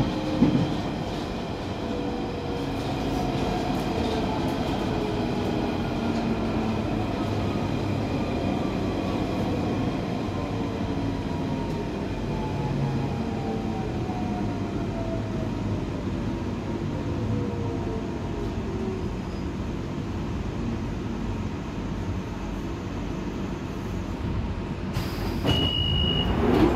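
A London Underground 1992 Stock train braking into a station, heard from inside the carriage: a steady rumble of wheels on the track, with a motor whine that falls slowly in pitch as the train slows. Near the end the doors open with a short hiss and a brief beep.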